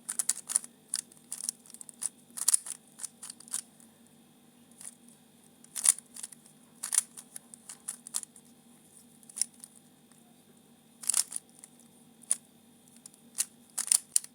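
A Rubik's cube being turned by hand: quick clicks of the plastic layers snapping round, a rapid flurry for the first few seconds, then single turns spaced about a second apart.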